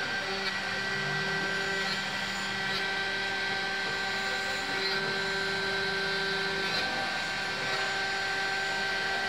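CNC vertical milling machine running, its end mill cutting into a metal block held in a vise: a steady whine and hum over even cutting noise. Some of the tones drop out and return every couple of seconds, with faint ticking from the cut.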